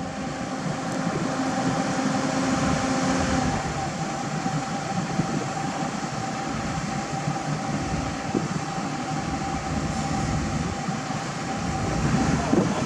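Diesel engine of heavy earthmoving equipment running steadily, with a steady whine over the engine noise; near the end the sound gets louder and rougher.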